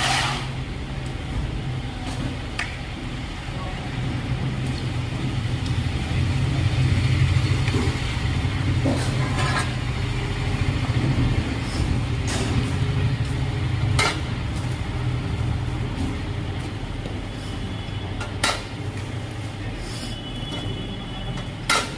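A steady, low engine rumble with a few sharp knocks scattered through it.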